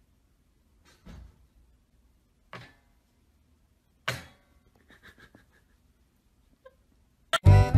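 Wire dog-crate door clanking against its metal frame as a puppy pushes it with its nose: three sharp metallic knocks about a second and a half apart, the last one loudest, followed by a few light rattles. Loud music cuts in near the end.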